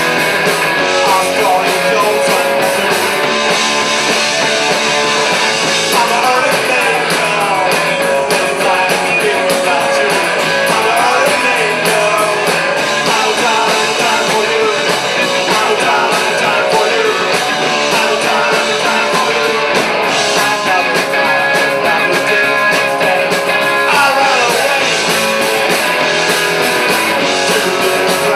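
Live rock band playing loud and without a break: distorted electric guitars over a drum kit.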